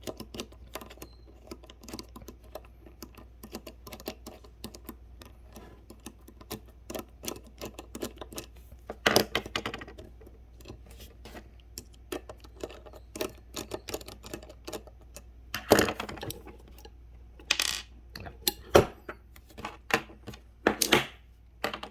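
Small steel parts of a ratchet wrench clicking and clinking as it is taken apart by hand: a steady run of light clicks, with a few louder metal clinks about nine seconds in and several more in the last third.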